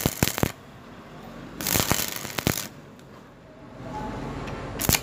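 Stick welding on cast iron: the electrode's arc crackling and spitting in short bursts of about a second, with pauses between them, one run ending about half a second in, another in the middle, and a third starting near the end.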